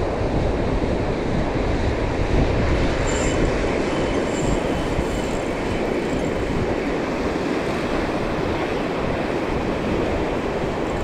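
Ocean surf washing in and out, with wind buffeting the microphone: a steady rush with a heavy low rumble.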